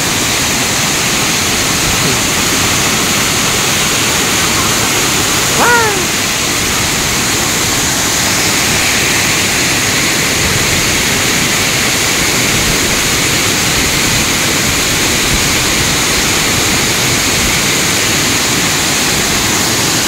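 Steady rush of a waterfall's falling water, with one short falling call about six seconds in.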